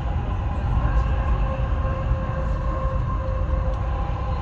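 Dubai Metro train running, heard from inside the car: a steady low rumble with a faint steady whine that comes in about a second in.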